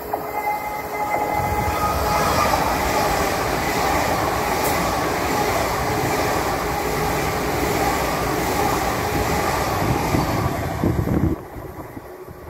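GWR Hitachi Intercity Express Train passing through at speed on its underfloor diesel engines: a loud, steady rush of wheel, rail and engine noise. It cuts off suddenly about eleven seconds in.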